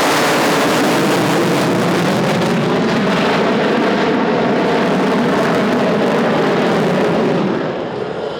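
Lockheed Martin F-22 Raptor jet fighter's twin Pratt & Whitney F119 turbofans in a loud pass, a heavy rushing roar with a pitch that slides down early on. The roar eases off near the end.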